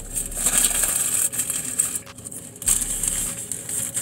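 Close-up eating sounds of a sub sandwich: chewing and the rustle of its paper wrapper, in two stretches with a short pause about two seconds in.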